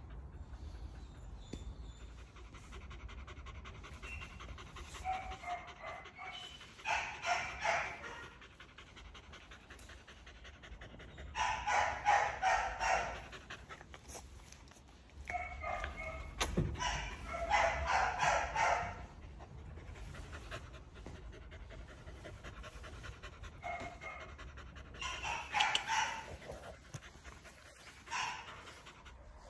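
Australian cattle dog (blue heeler) panting, in several bouts of quick breaths with quieter stretches between.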